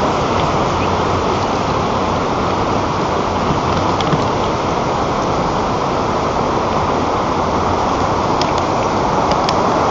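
Strong wind rushing steadily over the nest camera's microphone, a loud, even roar with a few faint ticks.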